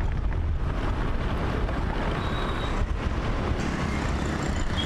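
Steady rumble of a motor vehicle riding along a road, engine and road noise with wind buffeting the microphone.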